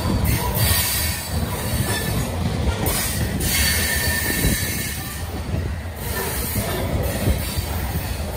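Covered grain hopper cars of a freight train rolling past on steel wheels: a steady low rumble with wheel and rail noise.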